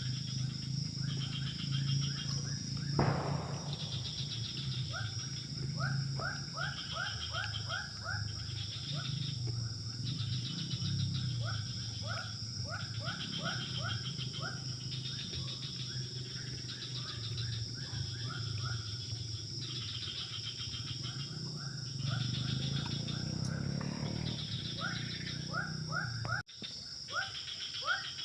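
Evening wildlife chorus: runs of short, quick chirping calls, several a second, repeating in bouts over a steady high-pitched insect buzz and a low drone.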